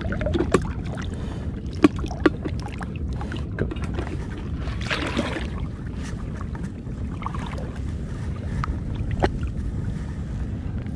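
Steady low rumble of wind on the microphone and the sea around a wading angler. A few sharp clicks come from handling the bait bucket and hook: two close together about two seconds in and one near the end.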